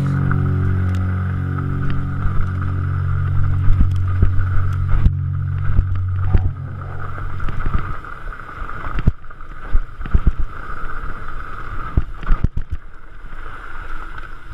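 Mountain bike running fast over a dirt singletrack, heard from the rider's on-board camera: a steady rush of tyre and wind noise with frequent sharp knocks and rattles as the bike hits bumps. A low steady drone underneath stops about eight seconds in.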